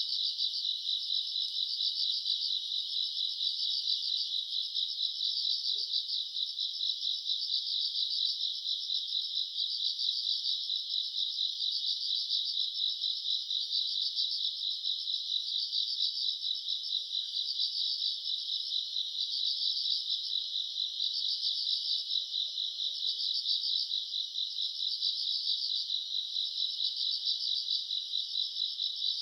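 Crickets and other grass insects chirring at night, a dense steady chorus of rapid high-pitched trills that swells and dips slightly without pause.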